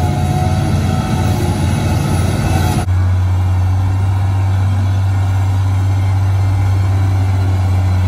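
XCMG LW500FV wheel loader's diesel engine running as it pushes soil. About three seconds in, the sound switches abruptly to a LiuGong motor grader's diesel engine running steadily with a strong low hum.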